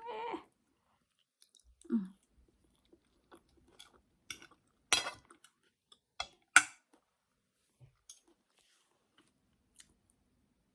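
A person eating chicken liver: quiet chewing, broken by a few sharp clicks of cutlery against a plate, the loudest about five and six and a half seconds in.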